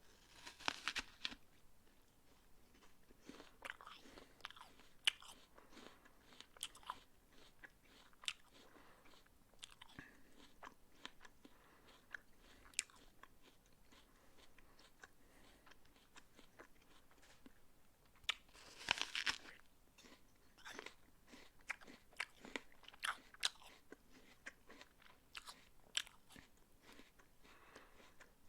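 A person biting into a crisp raw apple and chewing it, with many short crunches. Two louder bites, one right at the start and another about two thirds of the way through, are each followed by a run of crunching chews.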